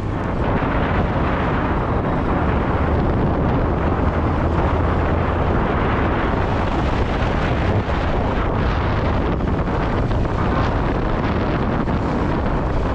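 Steady wind rush on the microphone of a rider on a moving motorbike, with the bike's engine and the road noise underneath.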